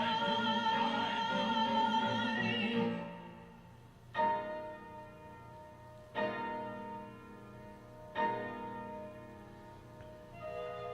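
Recorded music played back from an AKAI GX-266-II reel-to-reel tape: a sung vocal note with vibrato that ends about three seconds in, then three struck chords about two seconds apart, each ringing away, and a new sustained melody starting near the end.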